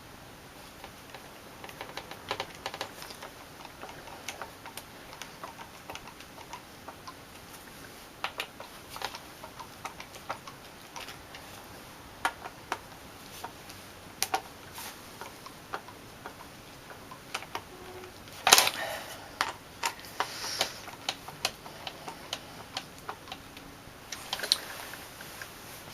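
Irregular small clicks and taps of a hard drive and its metal mounting bracket being handled and fitted together, with one louder clatter about two-thirds of the way through.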